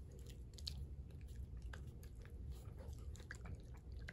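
Corgi puppy licking a person's leg: faint, irregular wet mouth clicks and smacks.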